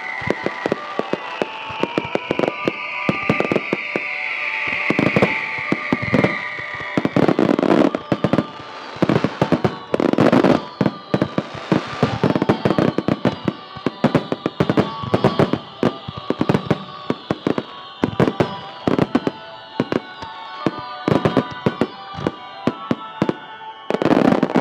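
Fireworks display: a dense run of shell bursts and crackling, with several falling whistles, over background music with steady held tones.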